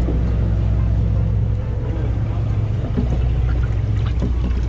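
Sportfishing boat's engine running steadily: a low, even drone.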